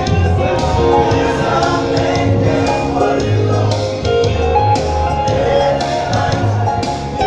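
A group of voices singing together in harmony, backed by instruments with a deep bass line and a regular beat.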